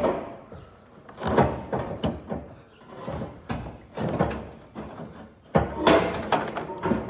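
Irregular clunks, knocks and scraping as a radiator is worked up and out of a pickup's engine bay, with a sharp knock at the start and a cluster of clunks about six seconds in.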